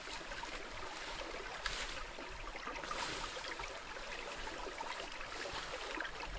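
Small stream at low water in the dry season, trickling gently and steadily.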